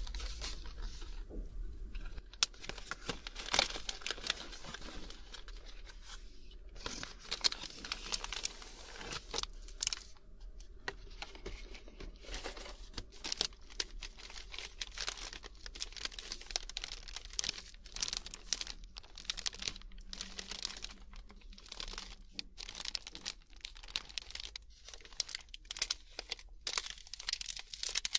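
A wafer biscuit packet being crinkled and torn open by hand, with a long run of irregular sharp crackles and rustles.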